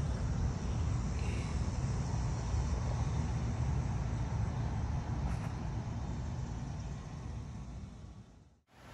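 Steady low outdoor rumble of distant road traffic, fading out near the end.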